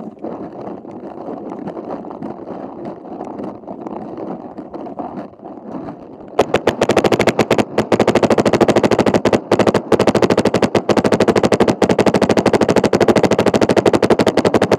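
Paintball marker firing rapid strings of shots, close and loud, starting about six seconds in with a few brief pauses. Before that, a rustle of movement and handling noise.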